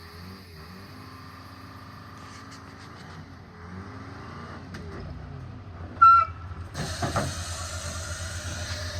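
Vehicle engine running steadily, growing louder and rougher about seven seconds in as it works harder, with a brief high chirp just before.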